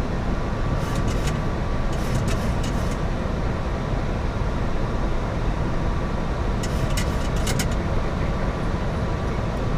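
Steady flight-deck noise of a Boeing 737 MAX in the climb after takeoff: a constant rush of airflow and engine rumble with a faint steady tone. A few short clicks come about a second in, around two to three seconds in, and around seven seconds in.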